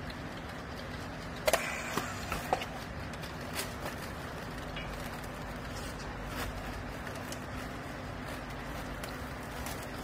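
A steady low machine hum, with a handful of sharp clicks and knocks between about one and a half and four seconds in, the first the loudest, as yellow plastic strapping is handled around a compressed bale of used clothes.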